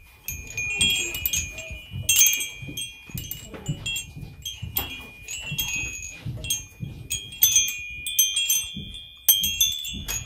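Metal-tube wind chime jangling as it is knocked again and again, the tubes clinking together and ringing on after each strike. Low rustling and bumping from hands working beside it runs underneath.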